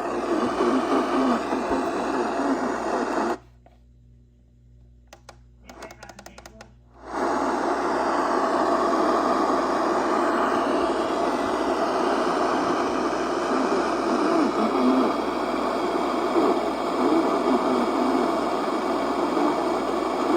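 Weather radio static: a steady hiss with no voice on the channel. It cuts out to near silence about three seconds in, then comes back about four seconds later.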